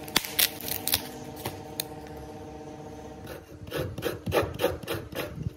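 A halved coconut being grated by hand, its flesh rasped against a grater in quick, regular strokes of about four or five a second. The strokes start about halfway through. Before them there are a few sharp clicks over a steady hum.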